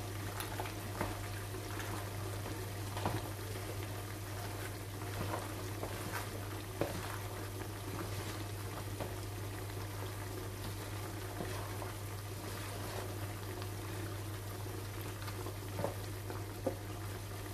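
Beef simmering in its juices in a frying pan, a steady bubbling sizzle, with scattered soft clicks as a wooden spoon stirs pasta salad in a bowl, over a steady low hum.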